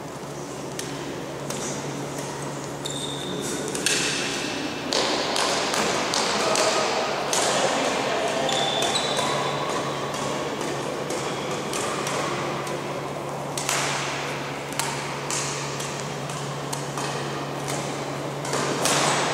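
Badminton rallies in a sports hall: repeated sharp racket strikes on the shuttlecock and short squeaks of shoes on the court floor, with voices around the hall.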